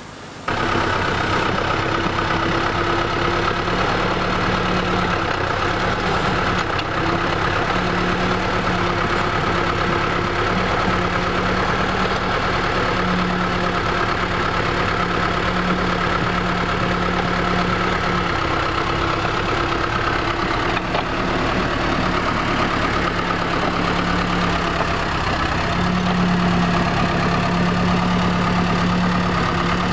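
Diesel engine of a backhoe loader running steadily as it works, its note swelling and easing a little at times, with a steady higher whine above it.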